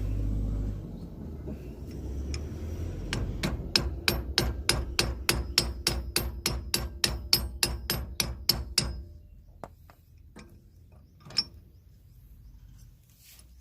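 A hammer striking metal in quick, even blows, about four or five a second, over a low rumble. The blows stop about nine seconds in, and a single knock comes a couple of seconds later.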